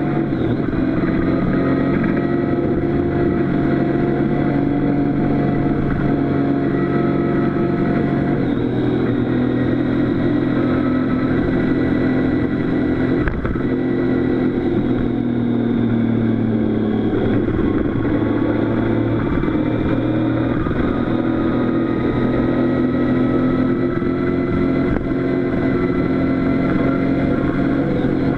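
Motorcycle engine running as the bike rides along a road, heard up close from a camera mounted on the bike. The engine note holds steady but drops and rises a few times as the rider changes speed.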